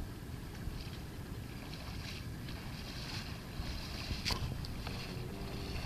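Wind rumbling on the microphone outdoors, with intermittent hissing rustles and a single sharp click about four seconds in.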